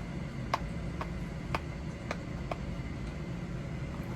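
Five light, sharp clicks in the first two and a half seconds as a piece of product packaging is handled and pried at, over a steady low room hum.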